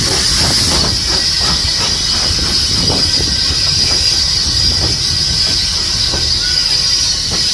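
Steam-hauled train pulling slowly out past the platform. The cab of Bulleid Battle of Britain locomotive 34070 'Manston' goes by, then its tender and the coaches roll past with a low rumble, a steady high hiss and a few scattered wheel knocks.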